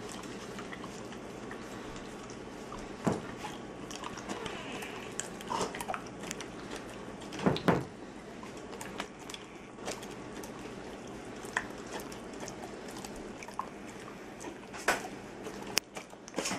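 A large dog licking and smacking at peanut butter on a plastic spoon: irregular wet tongue and lip smacks, the loudest burst about eight seconds in, over a steady room hiss.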